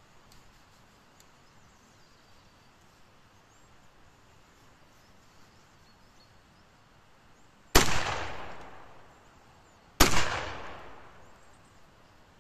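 Two shots from a Lefaucheux shotgun made in Saint-Étienne, about two seconds apart, each ringing out and dying away over a second or so.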